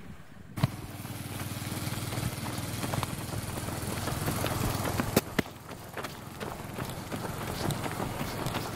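A vehicle engine running steadily at low speed, with a steady low hum that starts suddenly with a knock about half a second in and weakens about halfway through. Sharp knocks are scattered through it.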